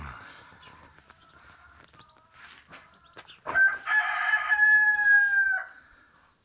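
A rooster crowing once: a single long call of about two seconds, starting a little past halfway and dipping slightly in pitch at its end.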